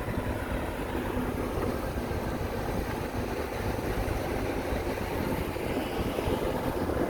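Diesel engine of a dump truck or bulldozer running steadily, a low rumble.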